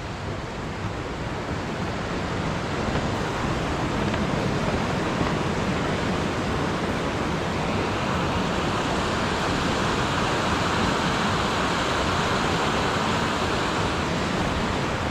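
Rushing mountain creek water, a steady, even rush that grows louder over the first few seconds and then holds steady.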